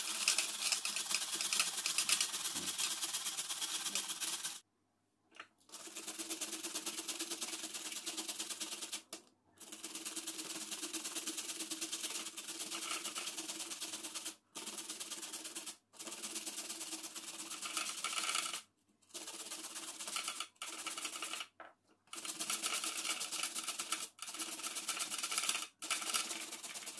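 Carrots being grated by hand on a stainless steel box grater: a fast, rhythmic rasping of strokes, in stretches broken by several brief gaps.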